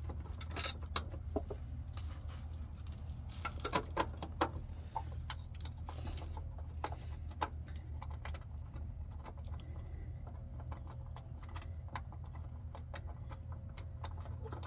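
Scattered small clicks and knocks from hands handling a plastic electrical junction box and its wires, bunched about a second in and around four seconds in, then sparser. A steady low hum runs underneath.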